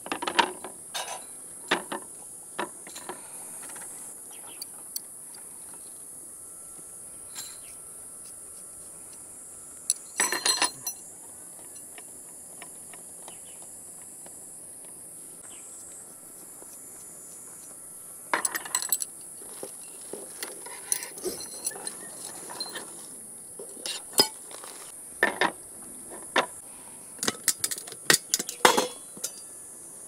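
Metal camp gear clinking and clattering on a folding camp table as stainless steel rods, a pot and its lid are handled and set down, in scattered clusters of knocks and clinks, busiest about ten seconds in, around eighteen seconds and near the end. A steady high-pitched hiss lies underneath.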